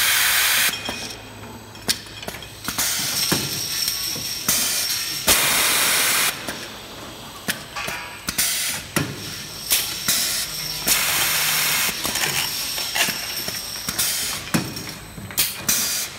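Automatic beer-bottling line running: repeated loud hisses of released air, the longest about a second, among quick mechanical clicks and clinks of glass bottles moving through the capper and along the conveyor.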